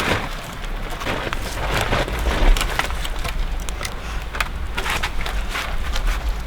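Dry wood and brush crackling and knocking as logs are handled and shifted, with irregular snaps over a steady low rumble.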